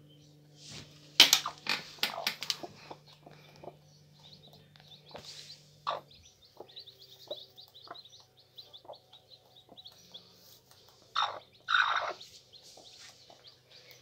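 Dry straw rustling and crackling as a hand works into a broody hen's straw nest, with a run of quick, high chirps in the middle and two louder rustles near the end.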